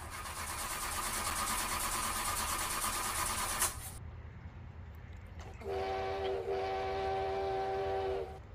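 A loud hiss for about three and a half seconds, ending in a click. After a short pause comes a multi-tone train horn sound, a short blast and then a long one.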